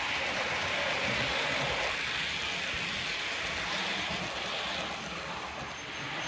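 Bachmann model Midland Blue Pullman train running on the layout track: a steady rushing rumble of wheels on rails and motors, easing off slightly near the end.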